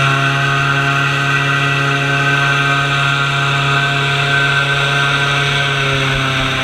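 Airboat's engine and air propeller running steadily while the boat cruises along, a loud, even drone.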